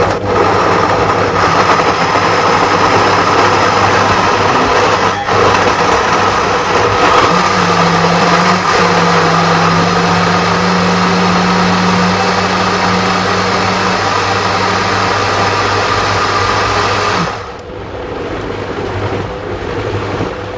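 Bosch kitchen machine's blender jug running at speed, blending chunks of cucumber, celery, green apple and ginger into a smoothie. It is loud and steady, then runs noticeably quieter for the last few seconds.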